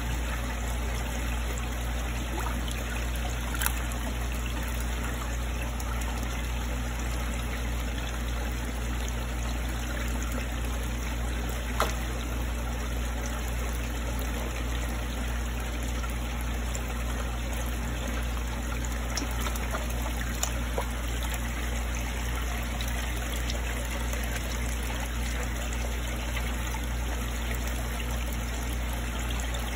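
Water trickling steadily in a koi fry tank over a steady low hum, with a couple of faint clicks about 4 and 12 seconds in.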